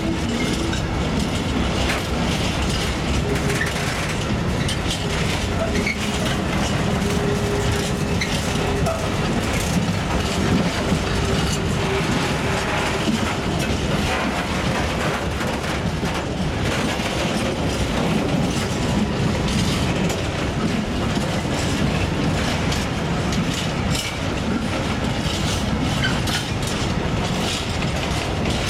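Empty gravel hopper wagons of a freight train rolling past, their wheels clattering steadily over the rails with a continuous rumble.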